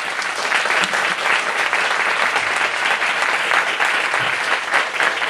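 Audience applauding, many hands clapping at once in a steady, even stream.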